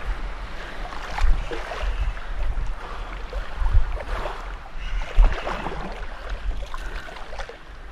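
Wind buffeting the microphone in uneven gusts over the irregular wash and splash of sea water.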